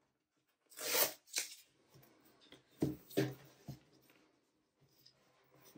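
The pull-tab strip of a Mac mini box's outer wrap being torn off: a sharp rip about a second in and a shorter one just after. Then the box is handled, with a few dull knocks and faint rustling.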